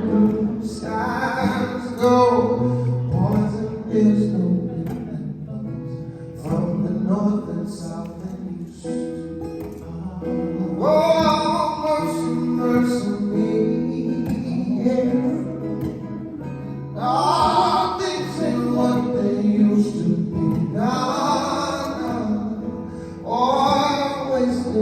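Live song: a voice singing in phrases a few seconds long over guitar accompaniment.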